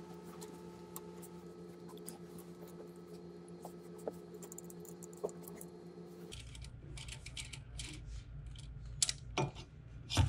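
Light metallic clicks and scrapes of hand tools and hardware as a button-head bolt is tightened through a bracket into a roll bar clamp, over a steady hum that stops about six seconds in. Near the end comes a sharper knock as a CO2 bottle is set against the bracket.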